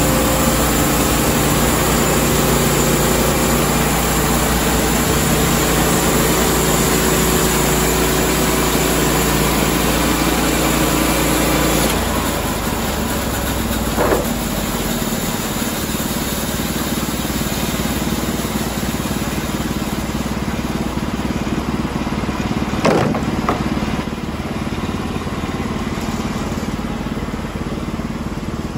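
Norwood LumberPro HD36 portable bandsaw mill running steadily, its gas engine driving the band blade along the log. About twelve seconds in the sound shifts lower and a little quieter, with two brief knocks later on, the louder one near the end.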